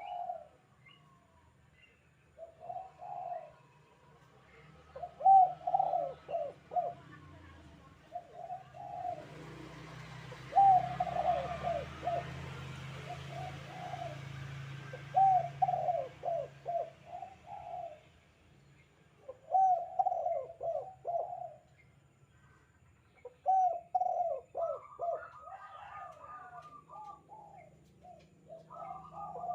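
Spotted dove (tekukur) cooing in its 'kuk 2' call, repeated phrases of several quick coos every two to three seconds. A steady hiss rises in the middle and fades again, over a low hum.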